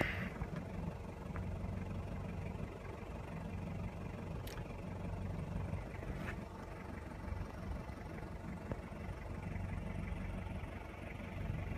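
Diesel 4x4 engine running at low, steady revs, a low drone heard from inside the vehicle.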